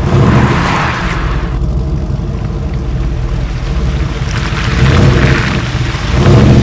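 Pickup-truck engine sound effect, running and revving. It swells louder three times: at the start, about five seconds in, and near the end.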